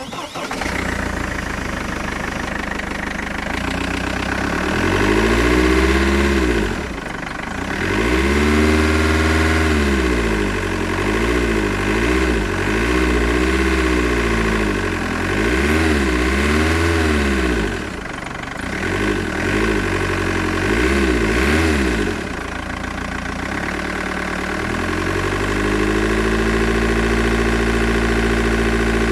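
Mercedes E200 CDI's OM646 four-cylinder diesel engine running and revved again and again, its pitch rising and falling, then held steady near the end. It carries a strange rattling noise that the owner suspects is an intake issue.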